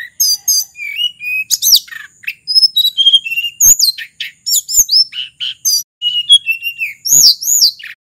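A sulingan gunung (tledekan gunung) flycatcher singing a fast, varied run of clear, high whistled notes that slide up and down, broken by short pauses.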